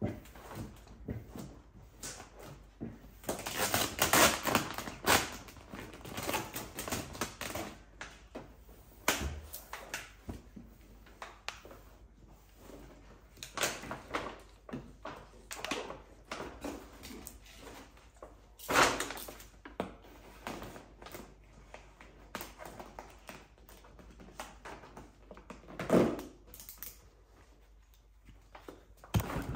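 A vinyl-wrap squeegee scraping and swiping over wrap film as it is pressed onto a car fender, with the film rustling and crackling as it is handled. The swipes come irregularly, with a few louder scrapes.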